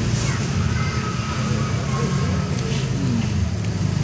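A steady low motor rumble, with a few faint falling tones over it.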